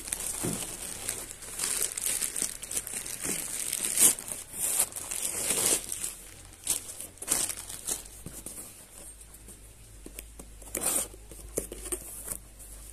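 Plastic courier mailer bag crinkling and rustling in irregular bursts as a cardboard box is pulled out of it, loudest in the first half; later quieter handling of the cardboard box.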